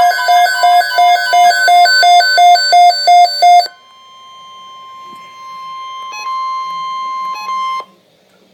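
Background music with a quick repeating keyboard-like figure that cuts off abruptly about three and a half seconds in. A single steady alert tone follows: the weather-alert attention tone that precedes the NOAA Weather Radio watch message. It starts faint, swells over a couple of seconds, holds for about four seconds and cuts off just before the end.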